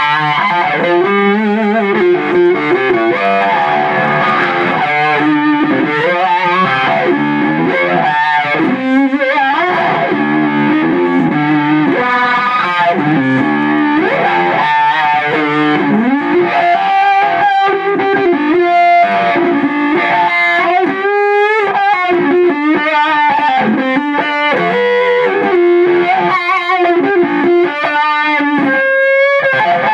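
Electric guitar played in chicken-pickin' style through a Voodoo SLO-modded Jet City 20-watt tube amp head and a 2x12 cabinet loaded with Eminence Governor and Swamp Thing speakers. It plays quick, staccato single-note runs, with string bends in the second half.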